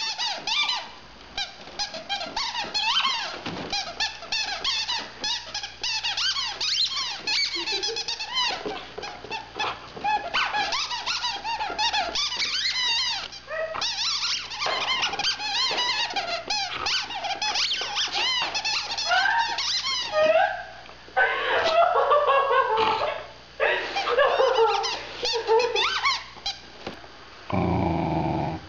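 A dog chewing a rubber squeaky toy, making it squeak over and over in quick runs of wobbling, high-pitched squeals with short breaks between them.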